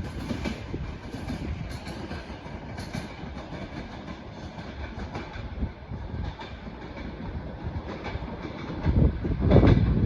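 Passenger train coaches rolling past at speed, their wheels clattering over the rail joints in an uneven clickety-clack. A louder low rumble comes about nine seconds in.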